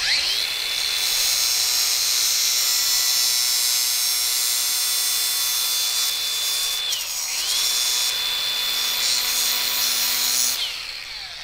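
Angle grinder with a cutoff wheel spinning up to a high steady whine and cutting through a steel control cable, with a harsh grinding hiss. About seven seconds in, the motor winds down briefly and spins back up; it winds down again near the end.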